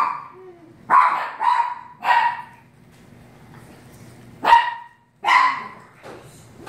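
Small dog barking: about five short, sharp barks, three in quick succession about a second in and two more past the middle.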